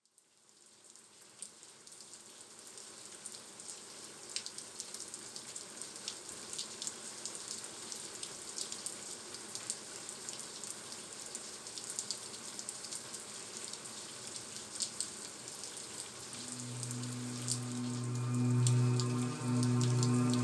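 Brine dripping and trickling off the wet brushwood walls of a salt graduation tower, many scattered drops pattering, fading up from silence. A sustained low synthesizer chord comes in about three-quarters of the way through and soon drowns out the drops.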